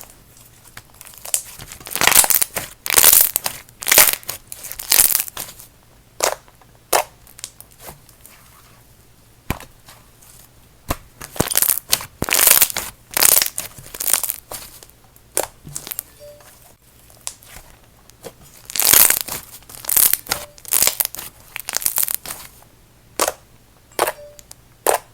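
Blue jelly-icy crossover slime being squished and worked by hand, giving sizzly crackles and sharp pops in several bursts with short pauses between.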